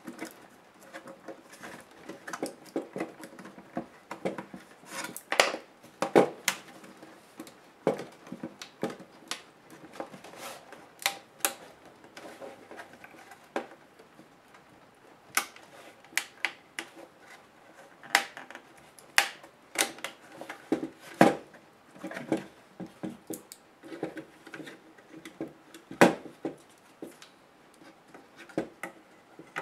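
Irregular clicks, taps and knocks of hands working on an HP DV3000 laptop's plastic case and motherboard, freeing the board and lifting it out of the bottom case. A sharp knock near the end is the loudest.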